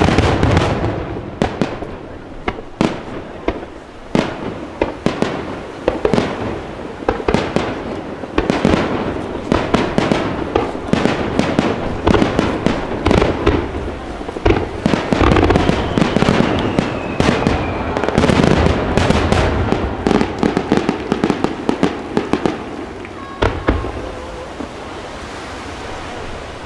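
Fireworks display: aerial shells and ground fireworks going off in rapid succession, a dense run of sharp bangs and crackling, with a faint falling whistle about halfway through. The bangs thin out near the end.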